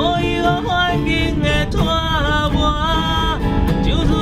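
A man singing a slow Taiwanese Hokkien song to his own acoustic guitar, holding long notes that bend in pitch.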